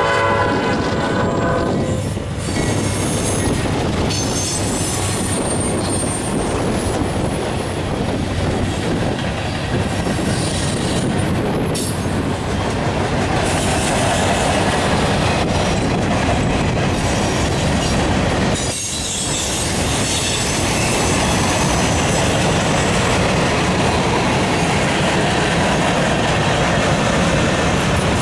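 Norfolk Southern manifest freight train passing close by: the lead GE C40-8 locomotive's horn sounds a steady chord that cuts off about two seconds in. The steady rumble and clatter of the freight cars rolling past follows, with a thin high wheel squeal a few seconds in.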